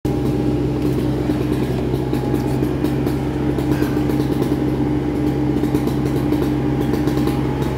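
Heavy work-truck engine running steadily at constant speed: an even drone with a thin, steady whine over it.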